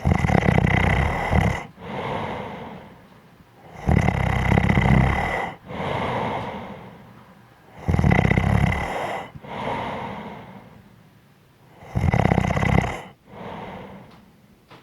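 A person snoring in a regular rhythm: four loud snores about four seconds apart, each followed by a quieter breath.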